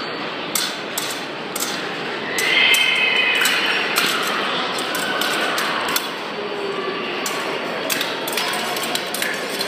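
Fencing blades clashing, an irregular run of sharp metallic clicks and clinks as the two fencers exchange, over the steady murmur of a large crowded hall.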